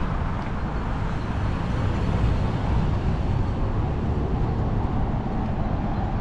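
Steady city street traffic noise, a continuous rumble of passing cars.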